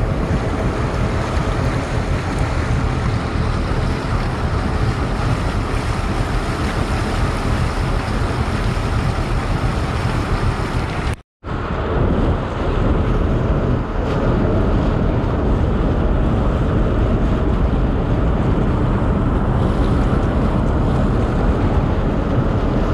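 Wind buffeting the camera microphone over the rush of water past a moving boat. There is a steady, loud din and one short drop to silence about eleven seconds in.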